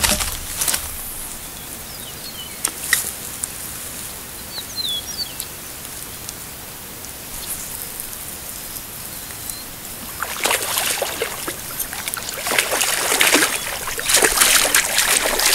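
Rain runoff water trickling steadily from a ditch into a lake, with a few small bird chirps about four seconds in. Louder rustling and splashing noises come in several times over the last five seconds.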